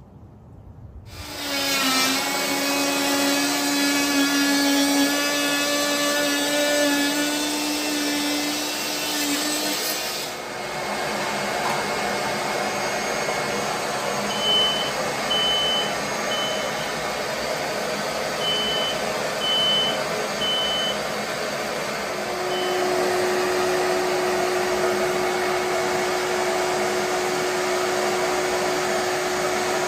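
A vacuum-type motor starts up about a second in and runs steadily with a humming drone whose pitch steps up about two-thirds of the way through. Short high beeps in quick groups of two or three sound through the middle.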